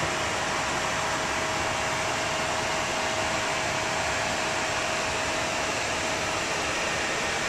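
Steady rush of air and fan noise in a Boeing 757-200 cockpit, from the cockpit air-conditioning and cooling fans running, with a steady whine that fades out about six seconds in.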